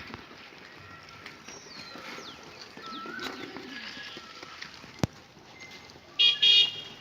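Small birds chirping and whistling in the background of a farmyard, with a sharp click about five seconds in. Near the end comes a loud, short, two-part high-pitched call or honk, the loudest sound here.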